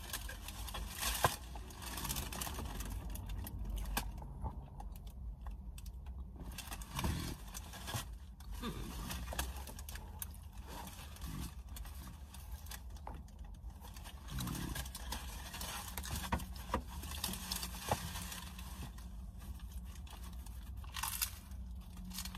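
Close-up eating sounds: a person chewing Taco Bell food, with crinkling and rustling of a paper wrapper and many small scattered clicks and crunches.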